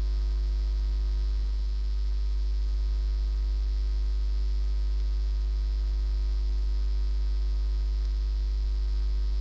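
Steady electrical mains hum with a stack of evenly spaced overtones, unbroken throughout.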